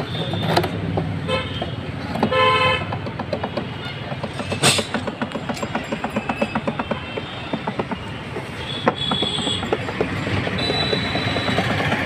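Road traffic with a low engine rumble; a vehicle horn toots briefly about two and a half seconds in, and a sharp knock comes a couple of seconds later.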